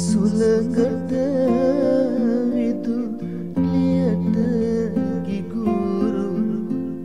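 Sinhala verse (kavi) sung in a wavering, ornamented melody over strummed acoustic guitar. The voice breaks briefly about halfway through.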